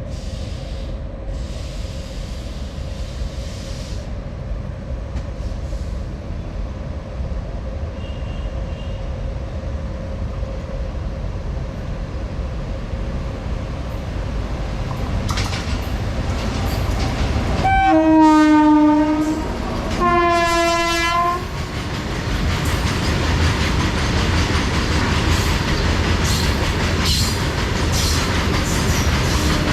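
Indian Railways WAG-9 electric locomotive hauling a coal freight train at high speed. Its rumble grows as it approaches, then it sounds two blasts on its multi-tone horn about 18 and 20 seconds in, the pitch dropping as it passes. The loaded coal wagons then rattle past on the rails.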